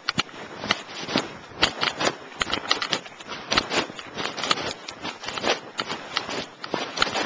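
Footsteps, mixed with irregular crackling and rubbing from a handheld camera being jostled as it is carried.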